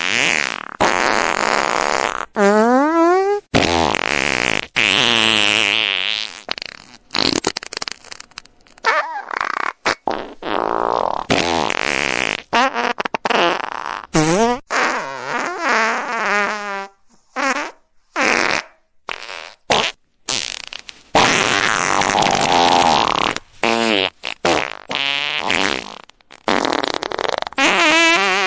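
A long run of fart sounds, one after another with short gaps. Some are long with a clear pitch that wavers, rises or falls; others are short and airy.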